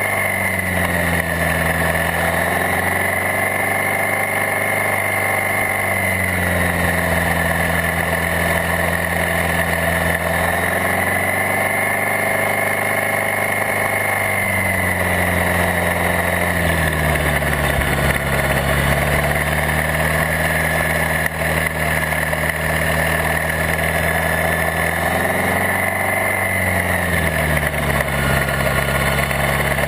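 Maverick flying car's rear-mounted engine running as it drives on the road. Its pitch drops and rises several times as it changes speed, with a lower, steadier note in the second half.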